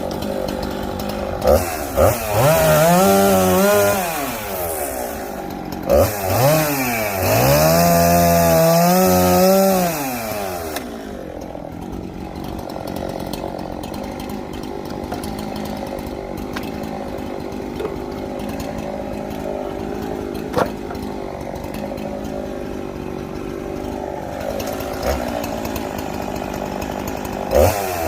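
Two-stroke chainsaw cutting sweet gum firewood: it revs up into a cut twice, its pitch rising under load and dropping back after each cut. It then runs at a lower, steady speed for a long stretch and revs up again at the very end.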